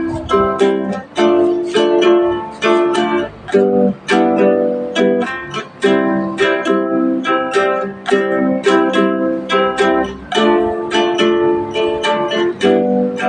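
A plucked string instrument strummed in a steady rhythm, chord after chord ringing out as an instrumental introduction.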